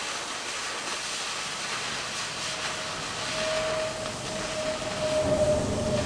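Oxyacetylene cutting torch cutting through half-inch steel plate, its cutting-oxygen jet a loud steady hiss with the tip held about three-quarters of an inch off the work. A steady whistle comes in about three seconds in.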